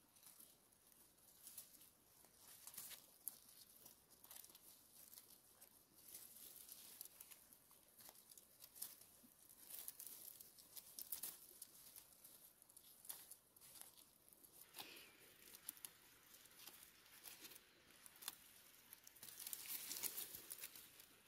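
Blackberry bramble rustling and crackling faintly as berries are picked off by hand: scattered small clicks and leaf rustles, denser for a couple of seconds near the end.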